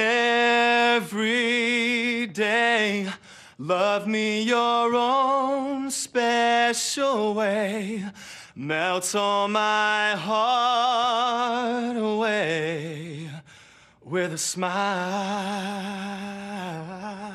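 A man singing solo and unaccompanied, holding long notes with a wide vibrato, in phrases broken by short pauses for breath.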